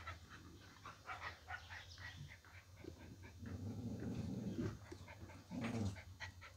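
Dogs at close quarters, with a low growl about halfway through and again briefly near the end.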